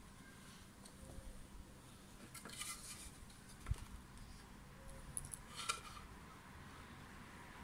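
Loose pallet-wood boards handled on a wooden worktable: a few light knocks and scrapes as they are shifted and stood on edge, the firmest knock about halfway through.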